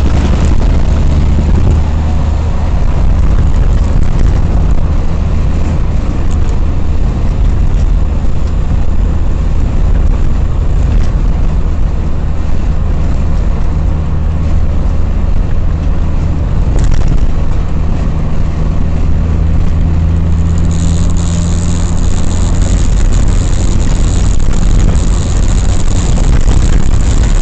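Car driving at road speed and picking up pace, heard inside the cabin: a steady low rumble of engine and tyres, with a brighter tyre and wind hiss joining about three-quarters of the way through.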